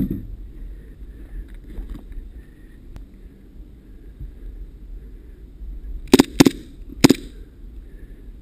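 Three sharp airsoft gun shots in quick succession, two close together and a third just after, over a low steady rumble.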